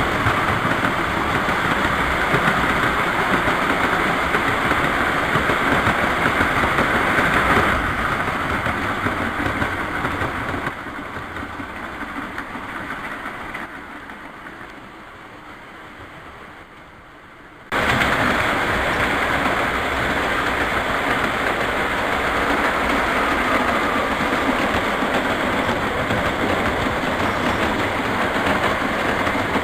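O gauge three-rail model train running on its track, a steady noise of motor and wheels on rails. It fades away from about a quarter of the way in and is loud again suddenly a little past halfway.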